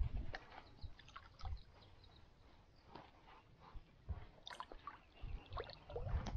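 Lake water splashing and dripping close by, in short irregular bits, with scattered low thumps.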